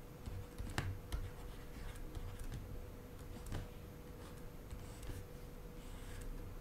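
Faint, scattered taps and light scratches of a stylus on a drawing tablet as a diagram is drawn by hand, over a faint steady hum.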